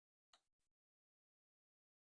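Near silence, broken once about a third of a second in by a brief, faint rustle of trading cards being handled.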